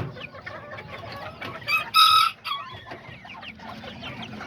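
Kikiriki bantam chickens clucking and chirping, with a short loud rooster call about two seconds in. A sharp knock right at the start.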